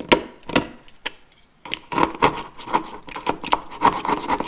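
Utility knife blade carving and scraping dried joint compound out of an electrical box opening: two sharp scrapes at first, then after a short pause a quick run of irregular scrapes and clicks.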